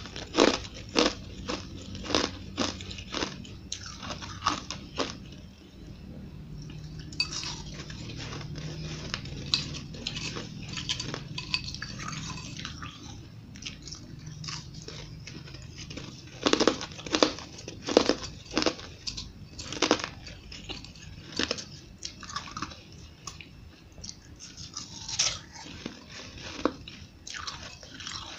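Ice chunks being bitten and chewed close to the microphone, a string of sharp crunches. The crunches come thick and fast for the first few seconds, turn softer in the middle, then there is a run of loud bites before they thin out near the end.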